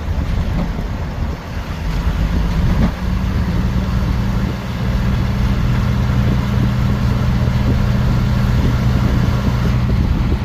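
A motor vehicle driving, with a steady low engine hum over road noise. The hum settles to a constant pitch about three seconds in.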